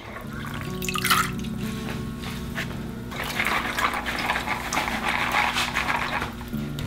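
Water splashing and draining through a plastic colander of soaked chickpeas into a kitchen sink, over background music. The splashing grows louder about halfway through.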